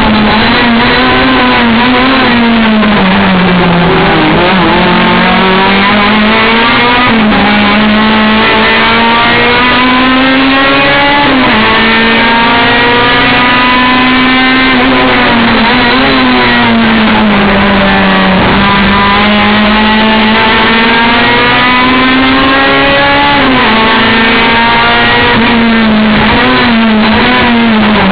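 Race car engine held at high revs and run hard through the gears: the engine note climbs steadily, then drops abruptly at each upshift, or slides down under braking and downshifts, several times.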